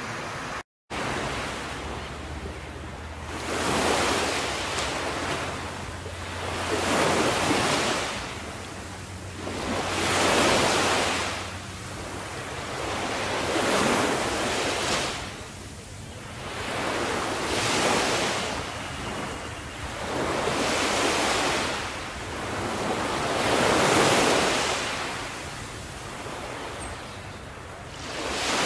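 Sea waves washing onto the shore, the surf swelling and fading eight times, about every three to four seconds, after a brief dropout just under a second in.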